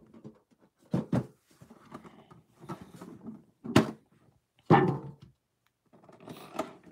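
Metal collector's tin being handled and its lid pulled off: two light clicks about a second in, soft rubbing of metal, a sharp click near four seconds as the lid comes free, then a thunk and rustling against the tin.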